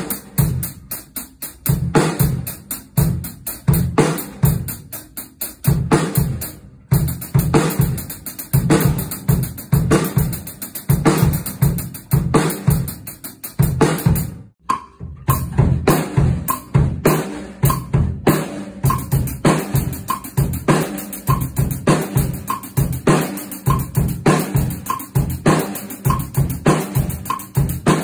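Acoustic drum kit being played with sticks: a steady, fast run of strokes on the snare, with bass drum and cymbal. The playing stops briefly about halfway through, then goes on.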